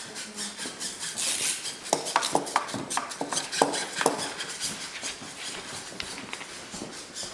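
A quick run of sharp clicks and clinks, densest and loudest about two to four seconds in.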